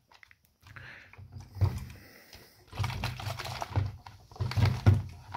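Plastic soda bottle, the carbonate reaction bottle of a DIY citric-acid CO2 generator, clicking and crackling irregularly in the hand as it is gripped and swirled to mix. The crackles come in short runs.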